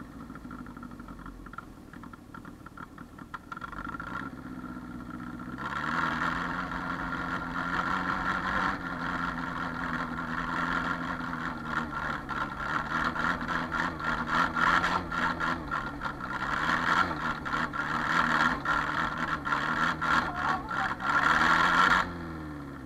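Engine of a homemade tractor built from a Skoda 1203, running. It is quieter for the first five seconds or so, then louder, with its pitch wavering up and down, until it cuts off shortly before the end.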